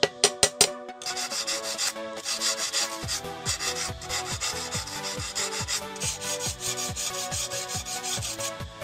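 A machete blade scraping and shaving a bamboo peg in quick repeated strokes, with a few sharp knocks in the first second. Electronic background music with a steady kick-drum beat plays underneath.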